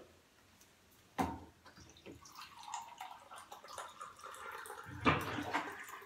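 Water pouring into a plastic measuring cup, after a sharp click about a second in; a louder knock about five seconds in.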